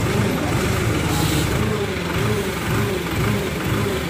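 Diesel engine of a mobile hydra crane running steadily, with a note that swells and falls about twice a second.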